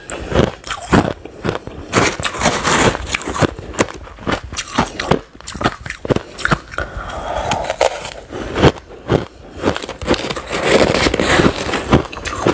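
Crushed ice being bitten and chewed close to a lapel microphone: a rapid, irregular run of sharp crunches. Near the end a spoon scoops and scrapes through the ice in the bowl.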